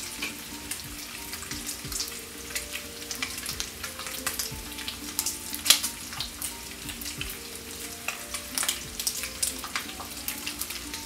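Silicone spatula scraping corn syrup out of a ceramic ramekin into a pan of sugar, a running crackle of small clicks and scrapes. Faint steady tones sound underneath.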